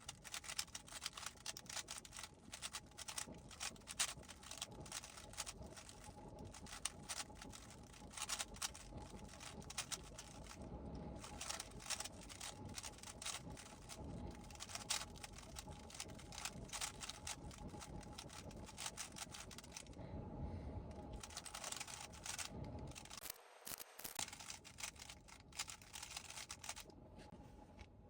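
GAN 15 speedcube being turned in quick runs of moves: rapid, irregular light plastic clicks and rasps of the layers turning, with short pauses between runs.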